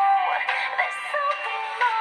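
Preloaded ringtone on a Samsung GT-C3530 mobile phone playing: a synthesized tune with a sung or voice-like lead melody that slides between notes over backing music, with almost no bass.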